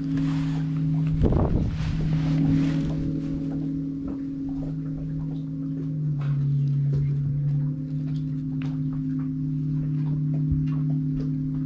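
Electric trolling motor humming steadily, its pitch stepping down and back up a few times as the speed is changed, with scattered small clicks and a short low thump about a second in.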